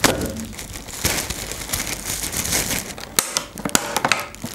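Thin plastic carrier bags rustling and crinkling as a takeout order is unpacked, with a sharp knock right at the start as a drinks can is set down on the metal tabletop. The clear plastic clamshell food box crackles and clicks as it is pulled from the bag, in a run of sharp clicks after about three seconds.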